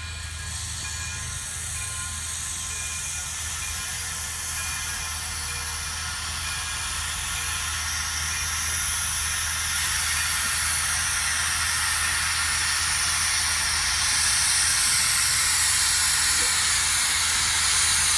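Steam-hauled passenger train approaching: a steady hiss of steam over a low rumble, getting gradually louder as the train comes closer.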